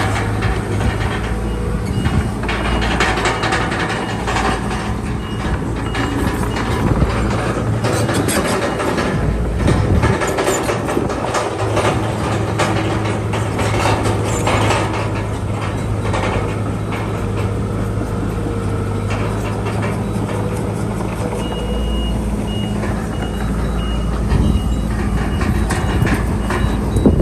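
Crawler bulldozer's diesel engine running, with the clanking of its steel tracks and blade. A reversing alarm beeps at an even pace over the last several seconds.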